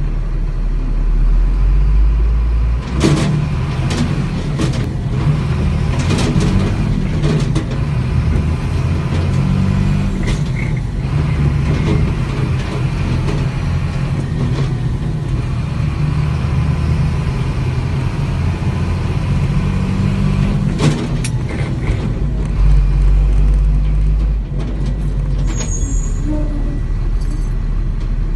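A vehicle's engine running at low speed, heard from inside the cab, speeding up and easing off several times as it maneuvers. A few short sharp sounds come around three to seven seconds in and again about twenty-one seconds in.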